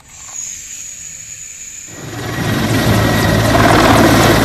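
A toy military helicopter's spinning rotor with a thin, high electric whine for about two seconds. Then it switches suddenly to a real military helicopter flying low, much louder, with dense rotor noise over a steady low throb.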